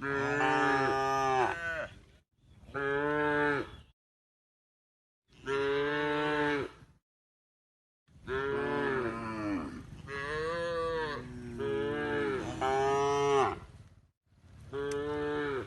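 Cow mooing over and over: long, drawn-out moos that bend in pitch, in several stretches broken by gaps of dead silence.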